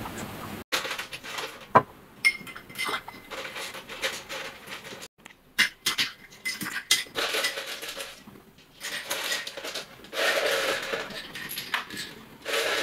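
Tabletop clinking and tapping of drinking glasses, ice and utensils as limes are squeezed into iced drinks: many small sharp clicks and knocks, two with a brief glassy ring. A denser rustling, scraping stretch comes about ten seconds in.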